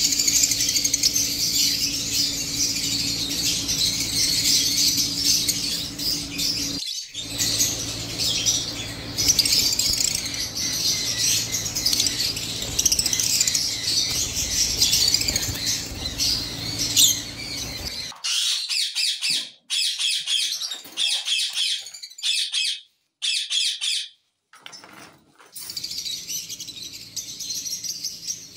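Fischer's lovebirds chirping and chattering, a dense stream of shrill high chirps with a few short breaks.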